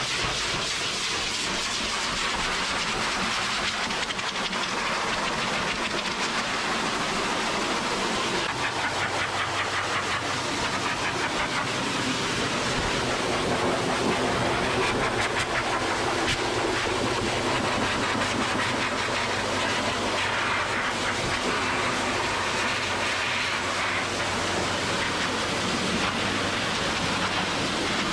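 High-velocity pet dryer blowing a steady rush of air through a Newfoundland's thick coat to dry it. The rush shifts a little in tone about a third of the way in.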